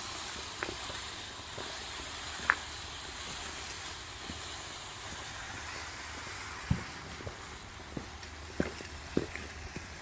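Rustling and crackling of dry, frost-killed sweet potato vines being gathered and piled, with scattered snaps and a couple of sharper cracks over a steady hiss.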